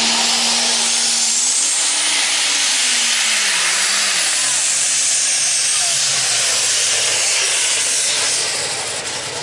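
Super stock diesel pulling tractor running flat out under load, a loud hissing roar with a high whistle over a low engine note. The engine note falls over the middle of the run.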